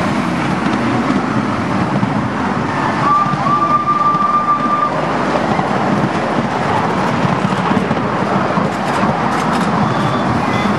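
Steady rumble of a ride-on miniature railway train rolling along its track, heard from aboard. About three seconds in comes a single whistle, one held tone lasting about two seconds.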